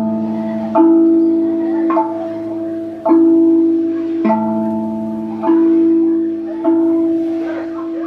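RAV drum, a steel tongue drum, struck slowly with wooden sticks: single notes about once a second, moving between a low note and a higher one, each ringing on into the next.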